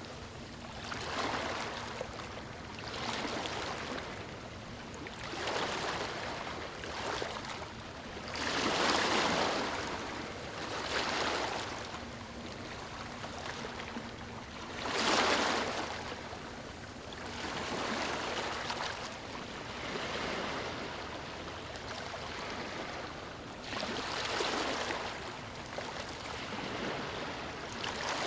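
Small calm waves washing onto a sandy beach, each swell of surf rising and falling every two to three seconds, a few breaking louder than the rest.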